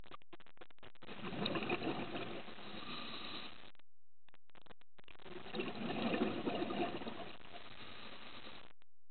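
Scuba diver's exhaled breath bubbling out of the regulator underwater: two long bursts of bubbling, starting about a second in and again about five seconds in.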